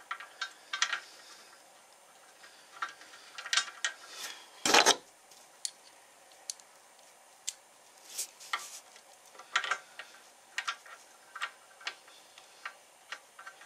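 Scattered light metallic clicks and clinks of a screw and Allen wrench against the DeWalt DW788 scroll saw's cast iron table and base while a mounting screw is being lined up with its thread. One louder knock comes about five seconds in.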